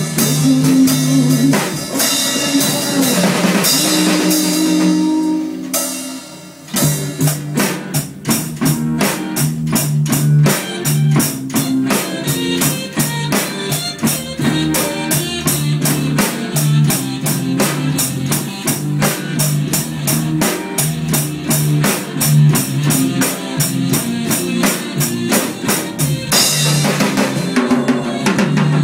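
Rock band music led by a drum kit, with bass and guitar. About six seconds in it briefly drops away, then a steady, evenly driving drum beat carries on under the band.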